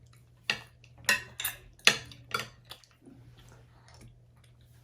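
Spoons clinking and scraping against bowls of porridge, a quick run of sharp clinks in the first three seconds, then quieter.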